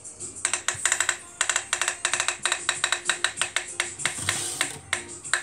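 A spinning-wheel app's tick sound playing from a phone speaker as the wheel turns. The rapid clicks start about half a second in and spread out as the wheel slows.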